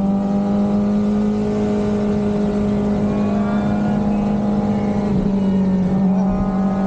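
Sport motorcycle engine running at a steady cruising speed, a single even drone with wind rush. The pitch sags briefly about five seconds in, then holds steady again.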